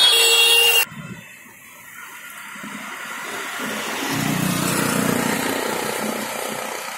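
Road traffic with CNG auto-rickshaws: vehicles pass close and loud until a sudden drop under a second in. Then quieter traffic swells as a vehicle approaches and passes, loudest about five seconds in, and fades.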